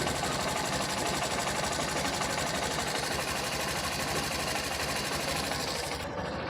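Honda Shine BS6's single-cylinder engine idling steadily after its engine repair, with an even, rapid mechanical ticking.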